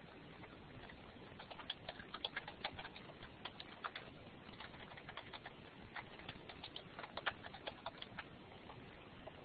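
Typing on a computer keyboard: two quick flurries of key clicks, the first a couple of seconds in and the second near the end.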